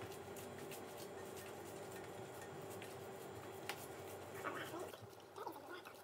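Hands patting and pressing a raw ground-meat meatloaf mixture into shape: faint soft wet squishes and light taps, over a steady low hum that stops about four seconds in.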